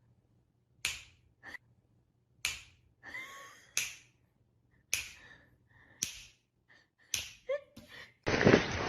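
A series of sharp smacks, about ten at uneven intervals, one of them more drawn out a little after three seconds in.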